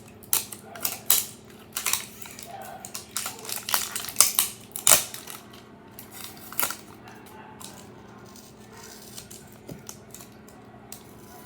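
Scissors snipping with crinkling plastic: a quick, busy run of sharp snips over the first six or seven seconds, then only a few faint clicks.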